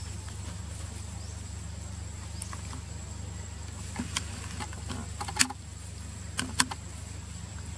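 Dry leaf litter and twigs crackling in a few sharp snaps as macaques move over the ground, the loudest about five and a half seconds in. Under it runs a steady low rumble and a thin, steady high tone.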